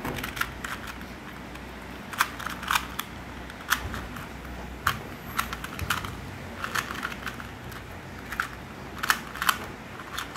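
A new 2x2 Rubik's cube being turned by hand: irregular sharp plastic clicks of the layers snapping round, some coming in quick pairs.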